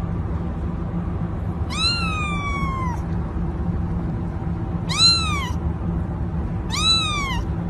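A cat meowing three times: first a long, drawn-out meow falling in pitch, then two shorter meows, over a steady low hum.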